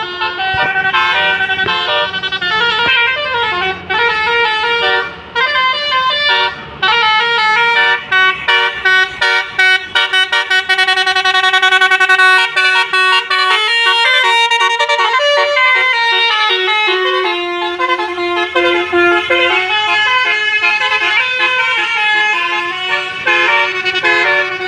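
Basuri musical air horn on a bus playing a loud melody of quick stepping notes, several horn tones sounding together, with longer held notes around the middle.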